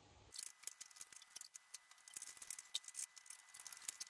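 Rapid, irregular faint clicking and tapping of a mop being worked in a plastic mop bucket.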